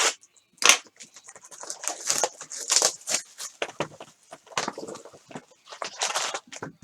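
Plastic trading-card pack wrapper crinkling and tearing as it is ripped open and handled, in quick irregular rustles.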